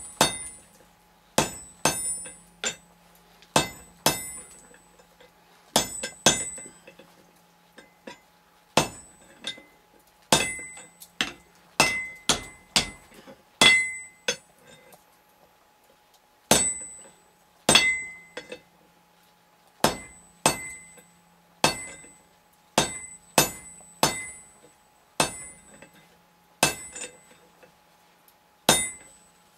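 Hand hammer striking a hot iron bar laid over a triangular hardy tool on the anvil, notching the bar, with a bright ring after each blow. The blows come in irregular runs of about one to two a second, with short pauses between the runs.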